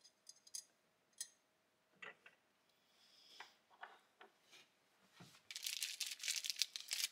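Small engine parts being handled on a workbench: a few light clicks and taps of metal parts, a knock about five seconds in, then rustling and scraping over the last second and a half.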